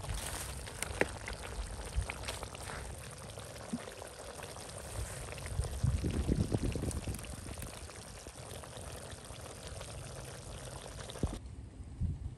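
Liquid boiling in a wok over a wood fire: a steady hiss with scattered sharp clicks, and a louder stretch of bubbling or pouring about six seconds in. The hiss drops away suddenly shortly before the end.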